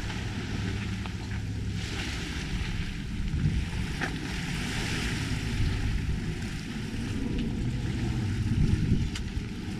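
Wind buffeting the microphone, a steady low rumble with a soft hiss that swells and fades, and a few faint taps.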